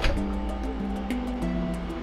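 Background music with held notes stepping in pitch. A short metallic clink sounds right at the start.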